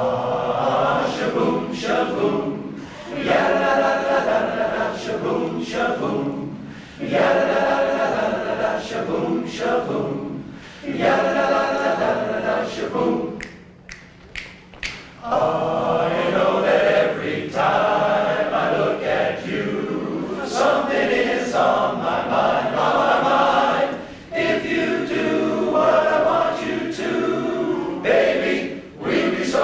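Large men's barbershop chorus singing a cappella in close harmony, in sung phrases with a short pause about halfway through.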